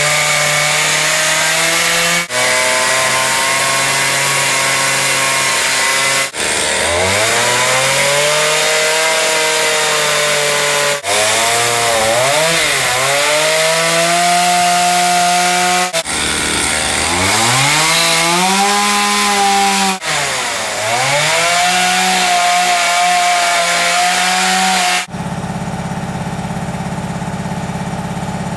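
A Zenoah two-stroke chainsaw running hard while carving wood. Its pitch sags as the chain bites into the cut and climbs back as it clears. The sound breaks off and restarts abruptly several times, and near the end it turns duller and lower.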